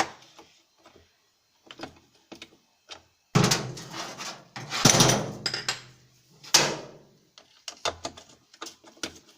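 Hand work on a washing machine's underside: clicks and knocks of a tool and loose parts as a nut is taken off and a protective cover is worked free, with a louder scraping, rattling stretch of about three seconds midway and a sharp knock just after it.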